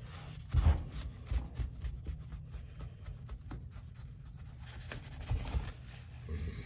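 A cloth rag rubbing and wiping over a foam-covered rubber lawn mower tire and steel rim in quick scratchy strokes, with a few dull thumps, the loudest about half a second in.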